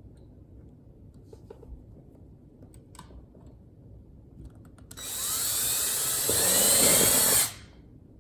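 Cordless drill driving a screw to fasten a recessed floor box into the wooden floor, running for about two and a half seconds about five seconds in and stopping abruptly, after a few faint handling clicks.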